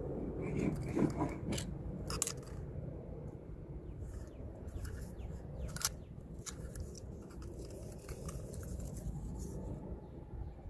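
Scattered small clicks and scrapes from handling an opened Apple Magic Mouse, its aluminium shell, battery and circuit board on a ribbon cable knocking and rubbing in the hands, over a low steady rumble.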